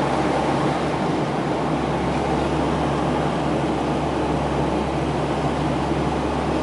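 Cabin noise of a Bombardier Dash 8 turboprop airliner on approach with its landing gear down: the steady drone of its engines and propellers, with a low hum under it.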